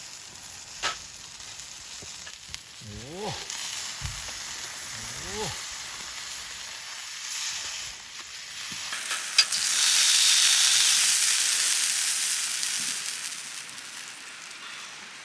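Food sizzling on a hot iron griddle plate. The sizzle jumps much louder about nine seconds in, then slowly dies back down, with a few sharp ticks along the way.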